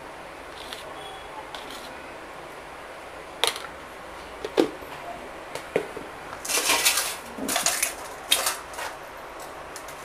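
A few light knocks of a dish, then short bursts of rubbing and scraping as salt and spice powder are rubbed into pieces of gar fish by hand.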